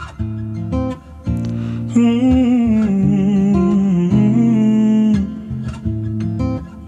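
Slowed-down, pitched-down pop song: acoustic guitar chords ringing. From about two to five seconds in, a voice holds one long wavering note over the guitar.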